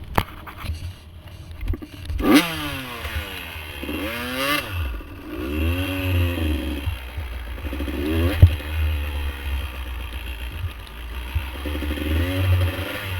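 Dirt bike engine revving up and down over and over, its pitch climbing and dropping, with clattering knocks and scrapes from the bike over rough ground. A sharp knock comes about eight seconds in.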